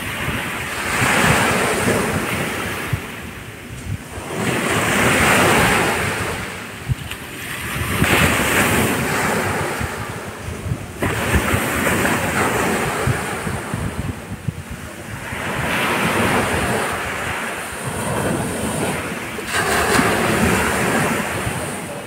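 Small sea waves breaking and washing up a beach, each surge swelling and fading about every three to four seconds.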